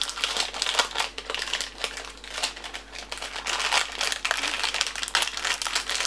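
Plastic Clif bar wrapper crinkling and crackling as it is handled and opened: a dense, irregular run of crackles.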